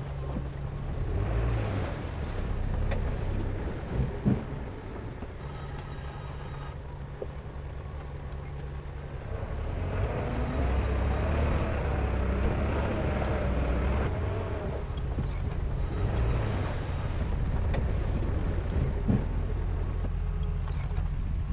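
Heavy diesel engine of earthmoving equipment running, its drone swelling under load midway. Two sharp knocks come about four seconds in, and another near the end.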